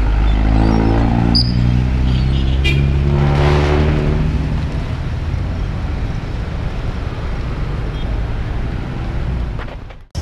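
Busy road traffic close by: vehicle engines running, one revving up about three seconds in, then a steady rush of traffic noise. The sound cuts off suddenly near the end.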